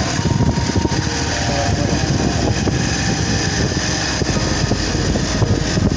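Motorcycle engine running steadily while riding at road speed, with wind rushing over the microphone.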